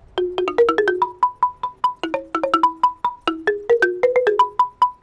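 Outdoor marimba with wooden bars over metal tube resonators, struck with two ball-headed mallets in quick runs of ringing notes, several strikes a second.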